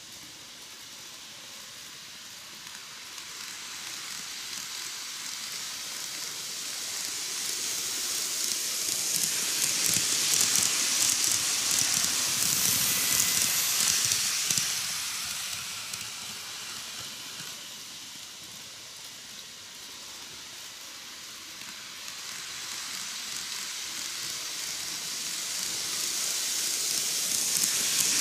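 KATO N-gauge 185 series model train running on sectional track: a steady rattling hiss of its wheels on the rails, growing louder as the train passes close about halfway through, fading, then growing again near the end as it comes round once more.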